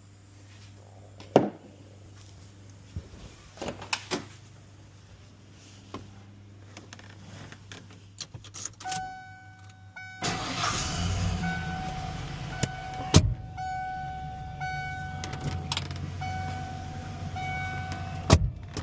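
Clicks and knocks on a pickup truck, then a steady electronic tone that keeps switching on and off. About ten seconds in, a louder steady vehicle rumble begins, consistent with the 1996 Ford F-150 starting and running.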